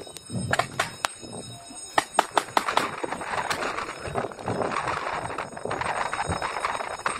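Magazine-fed paintball pistols firing: a rapid series of sharp pops in the first three or four seconds, several of them close together around two seconds in, followed by a rough rustling noise.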